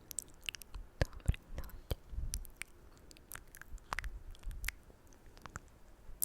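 Close-up ASMR mouth sounds: irregular wet, sticky clicks and smacks of lips and tongue close to the microphone, a few every second.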